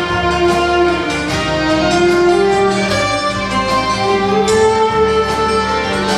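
Instrumental music: a melody on violin or strings over sustained accompaniment, with no singing.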